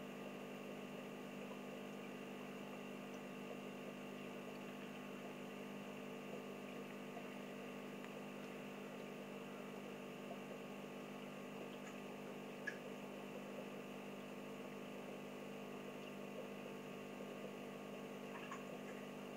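Aquarium pump running with a steady electrical hum, with one faint click about two-thirds of the way through.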